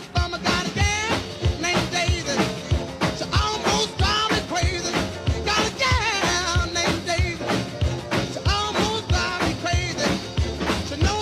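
Upbeat background music with a steady drum beat and a singing voice.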